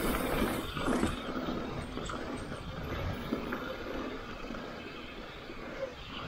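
Downhill mountain bike rolling fast over a dry dirt trail: knobby tyres on dirt and wind rushing over a handlebar-mounted action camera make a steady rumbling rush, with a few knocks and rattles from the bike over bumps.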